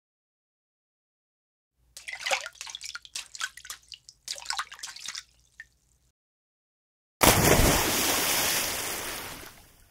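Water splashes in two separate takes. The first is a run of small, irregular splashes and sloshes lasting about four seconds. After a short silence comes one big, sudden splash whose spray fades away over a couple of seconds.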